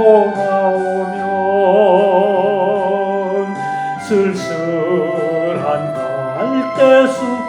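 A solo voice singing a slow Korean ballad with wide vibrato on held notes, over a steady instrumental accompaniment.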